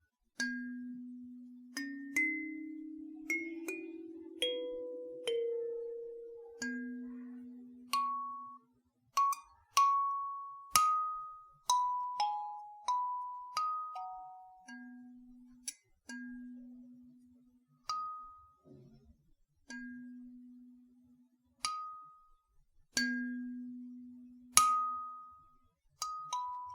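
Gecko K17CAS 17-key kalimba tuned to B, its metal tines plucked one note at a time, each note ringing and fading. It opens with a rising run of low notes, then plays a slower melody that moves between low and higher notes.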